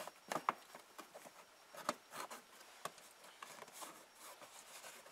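Plastic passenger-side kick panel of a Ford F-150 being pulled off and handled: scattered soft clicks, taps and rubbing.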